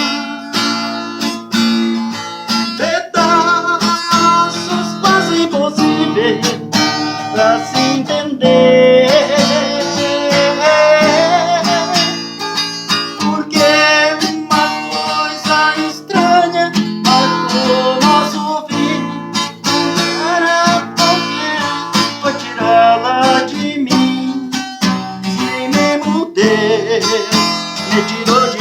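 Acoustic guitar music: strummed chords with a melody line that bends and wavers in pitch over them, an instrumental stretch of a romantic ballad.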